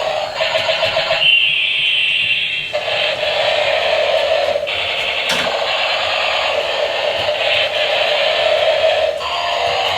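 Battery-powered toy police helicopter playing its electronic sound effects through a small tinny speaker. The sound keeps going, changing character every second or two.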